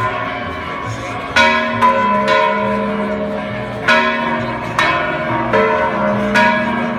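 Several church bells of different pitches struck in an irregular sequence, about seven strokes, each stroke ringing on and overlapping the next.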